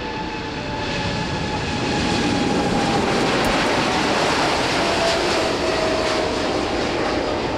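Boeing 747-8's four GEnx jet engines at takeoff thrust, heard from beside the runway as the jumbo lifts off: a loud roar that swells about a second in, with a whine that slowly falls in pitch as the aircraft passes.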